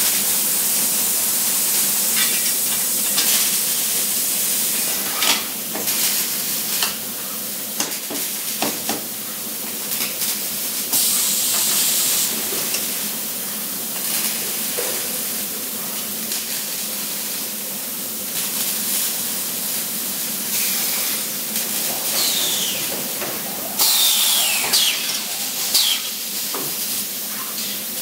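Welding shop noise: a steady sizzling hiss typical of MIG welding arcs, broken by scattered knocks and clanks of steel parts. A louder run of clanks and short falling squeals comes near the end.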